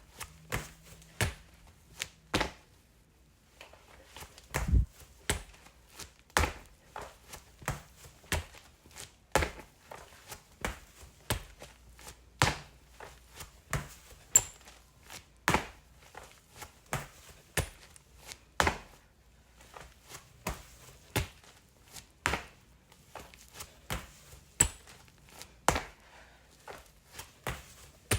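Person doing burpees without push-ups or jumps: a steady series of thuds and knocks on the floor as the hands and feet land and the feet step back in, a thud or two every second.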